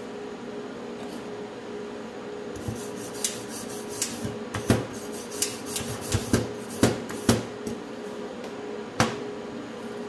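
Hand brush scrubbing over a fresh aluminium weld, cleaning the bead: a run of quick, irregular scrapes and knocks against the metal, starting a few seconds in, with the last one near the end. A steady low hum runs beneath.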